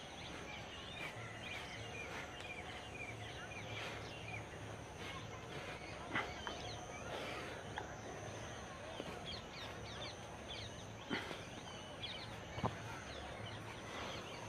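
Outdoor ambience of many birds chirping and calling, short quick chirps scattered throughout, over a steady high tone, with a few sharp clicks.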